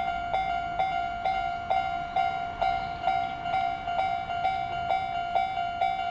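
Japanese railway level-crossing warning bell ringing, a steady run of ringing strikes about twice a second.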